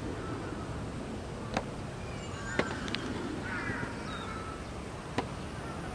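Crows cawing in short bursts, about two and a half and three and a half seconds in, over steady outdoor background noise, with three sharp clicks.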